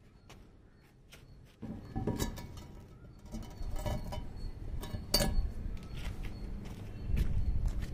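A bare CRT picture tube being handled and shifted on concrete: faint clicks at first, then from about a second and a half in a low rumble of glass on concrete with repeated clinks and knocks, the sharpest about five seconds in.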